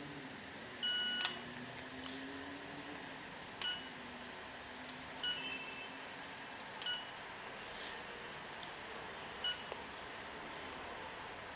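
Electronic beeps from the etzMAX MEDIUM grinder's control panel, as on button or touchscreen presses: one longer high beep about a second in, then four short beeps spaced a second and a half to two and a half seconds apart.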